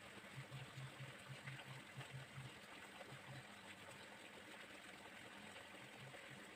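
Near silence: faint steady hiss of room tone, with short faint low buzzes coming and going.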